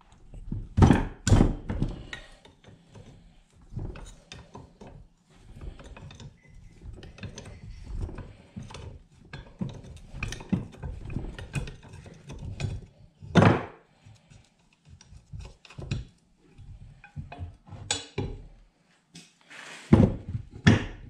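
Hand tools working on a removed hydraulic drive pump on a workbench: irregular metallic clicks, knocks and clunks as vise grips and a wrench are handled against the pump and set down. The loudest knocks come about a second in, midway through and near the end.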